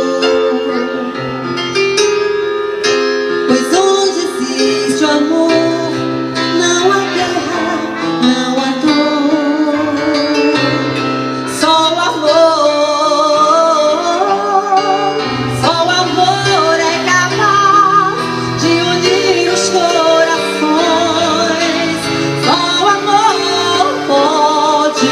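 A slow song playing: accompaniment with a wavering melody line over it, and instruments that may include guitar and keyboard. The melody may be wordless female singing or a lead instrument.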